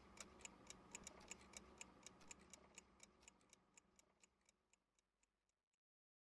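Clock ticking steadily, about four ticks a second, over a faint hum; the ticking fades away and stops shortly before the end.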